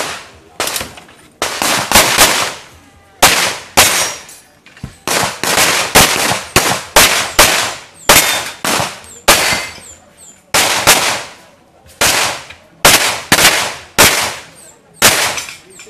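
Pistol shots fired in quick pairs and short strings, around thirty in all, with brief pauses between groups. Each shot leaves a short echo.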